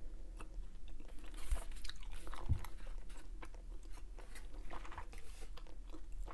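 Hubba Bubba bubble gum being chewed close to a clip-on microphone: irregular small clicks from the mouth, with a couple of soft low thumps about one and a half and two and a half seconds in.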